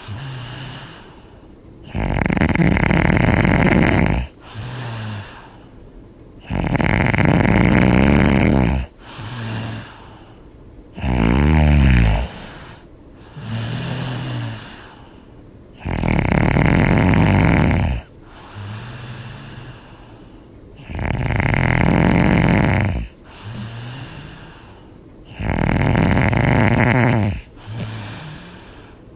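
A sleeping person snoring loudly in a steady breathing rhythm: a loud snore about every four to five seconds, each followed by a quieter breath.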